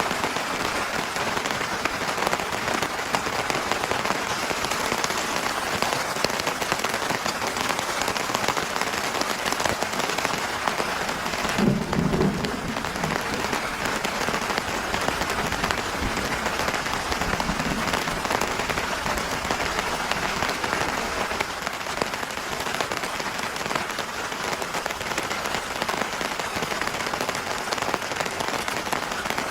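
Heavy rain falling steadily, a dense even hiss, with one brief low thump about twelve seconds in.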